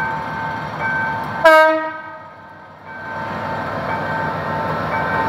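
GM GT22CW diesel locomotive pulling a passenger train through a level crossing: one short horn blast about a second and a half in, then its engine rumble growing louder as it passes close. A level-crossing warning signal keeps up a steady repeating electronic tone.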